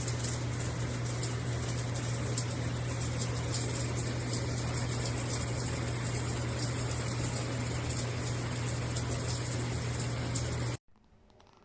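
Shower head spraying water in a steady rush over a steady low hum, which stops suddenly near the end.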